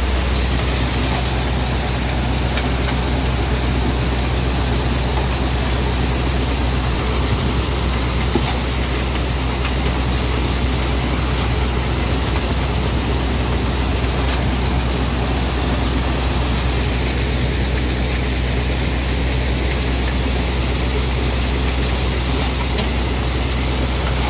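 Shaktiman multicrop thresher running at a steady speed while threshing castor: a constant low drone under an even rushing, rattling noise of seed and husk going through the machine.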